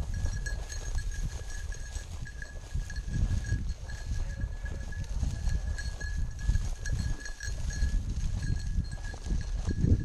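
Wind buffeting the microphone and footsteps through dry wheat stubble, with a steady high jingle from a bell on a hunting dog's collar.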